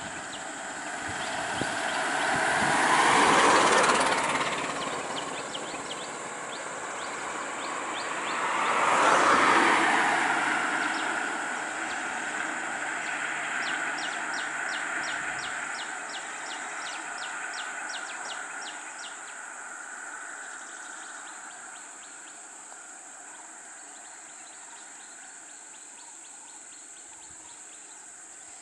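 Two vehicles passing close by on a paved road, each one's engine and tyre noise swelling and then fading, the first about three seconds in and the second near ten seconds; afterwards a car's sound slowly dies away as it drives off. A high, rapid ticking call repeats faintly in the background.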